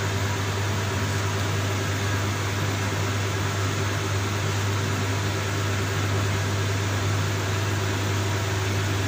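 CNC lathe running with its spindle turning, giving a steady hum and whir. The parting tool is not yet cutting the workpiece.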